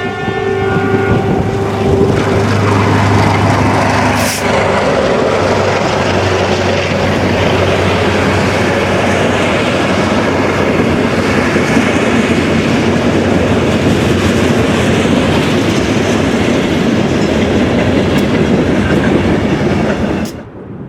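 A diesel freight train passing close by. The locomotive's horn sounds and dies away in the first two seconds over the low drone of the engines, then the cars roll past in a steady rumble and clatter of wheels, which cuts off suddenly just before the end.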